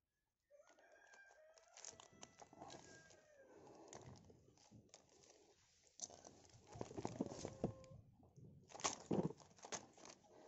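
Faint clicks, knocks and scrapes of metal parts and hand tools being handled while a chainsaw bracket is fitted onto an electric angle grinder, with a denser run of clicks in the second half.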